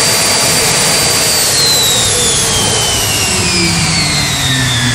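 Homemade turbojet engine running with a loud rushing exhaust and a high turbine whine. From about a second and a half in, the whine falls steadily in pitch as the engine spools down, with its afterburner unlit after a spark failure.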